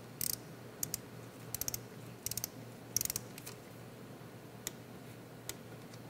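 Faint light metallic clicks, several short runs of quick ticks and then two single clicks, from hand work on the drain plug in a KTM 790 Adventure's engine case.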